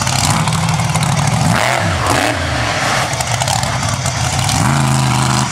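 Monster truck engine revving: the pitch drops and climbs back up about two seconds in, then is held at a steady high rev near the end.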